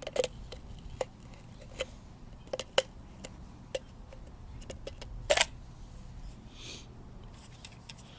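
Scattered sharp plastic clicks and taps as the removed EVAP vent solenoid canister is handled and opened, with one louder, slightly longer click a little past the middle.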